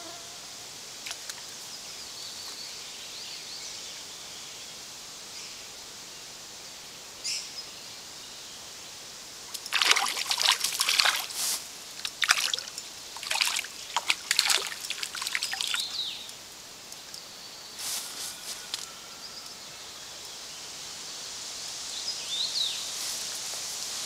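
Steady trickle of a small forest creek, with a cluster of loud, sharp noises from about ten to sixteen seconds in.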